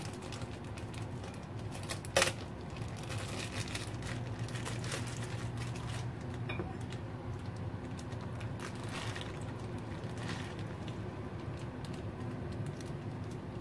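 Thin plastic bag crinkling and rustling as its knot is worked loose, then wet, saucy beef stew sliding out of the bag into a ceramic bowl. There is one sharp click about two seconds in, and a steady low hum underneath.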